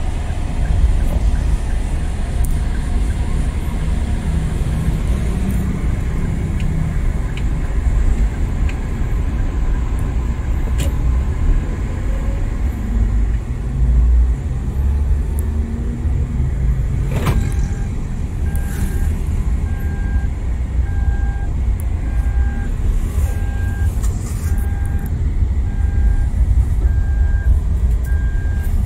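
Low engine and road rumble inside a car's cabin while driving. A sharp click about seventeen seconds in, then a steady electronic beep about once a second for the rest.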